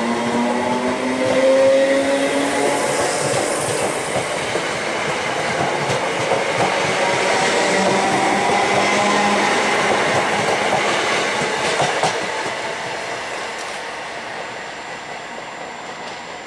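Two coupled Class 320 electric multiple units pulling out and accelerating away. A rising whine in the first couple of seconds gives way to steady wheel and rail noise, which fades in the last few seconds.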